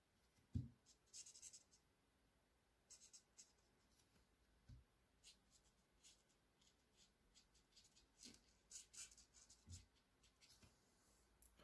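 Faint scratching of a felt-tip pen drawing quick, short hatching strokes on paper, in irregular clusters of rapid scratches. A few soft thumps stand out among them, the loudest about half a second in.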